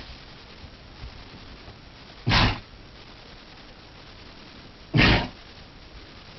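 Donkey sneezing twice, about two and a half seconds apart: two short, sharp blasts of air through the nose.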